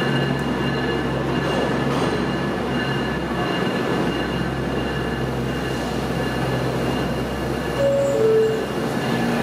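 Steady hum and rumble of subway trains in the station. About eight seconds in, a standing R160A-2 car sounds its two-note falling door chime, the signal that its doors are closing before it leaves.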